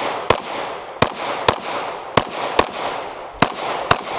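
Glock 26 subcompact 9mm pistol firing a string of about eight shots, close to the shooter, at an uneven pace of roughly two shots a second, with two shots almost back to back near the end.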